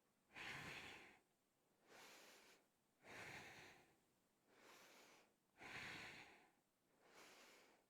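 A woman's paced yoga breathing, close to the microphone: three full breaths in a steady rhythm, a stronger breath alternating with a softer one about every second and a half.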